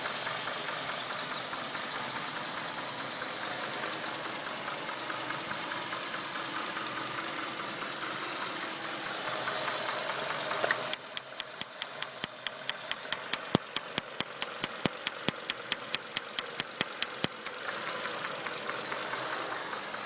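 A 1996 Acura TL 2.5's five-cylinder engine idling with a misfire on cylinder 1. About eleven seconds in, sharp, regular snaps of a high-voltage spark arcing start at about five a second and go on for some six seconds. The owner takes the misfire for a fault in the distributor cap, where cylinder 1's spark leaks out.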